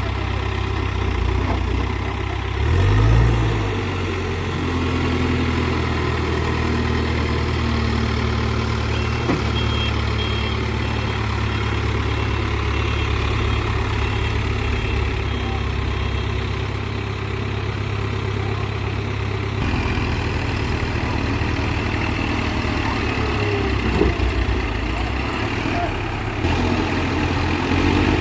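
Diesel engine of a Case 851EX backhoe loader running steadily, with a brief rise in engine pitch about three seconds in.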